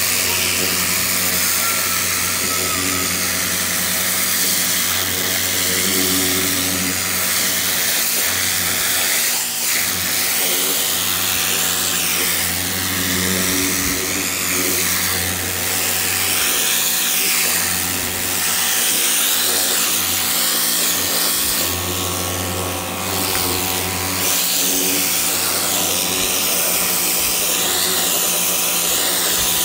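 Hart 2000 PSI pressure washer running, its pump humming steadily under the hiss of the water jet being swept back and forth over a carpet.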